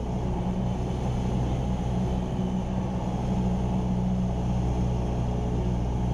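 Cessna 172R Skyhawk's four-cylinder Lycoming piston engine and propeller in steady flight, heard inside the cockpit as an even, low drone.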